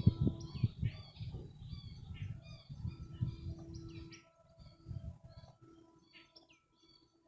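Many birds chirping and calling, with gusts of wind buffeting the microphone that ease off about four seconds in.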